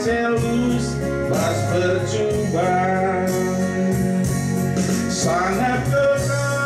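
A man singing a church hymn into a microphone over instrumental accompaniment, in long held notes.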